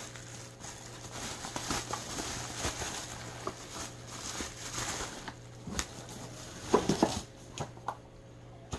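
Plastic bubble-wrap packaging crinkling and rustling as hand-held kitchen-tool parts are packed into it, with a few louder knocks about three-quarters of the way through as items are set down in a cardboard box.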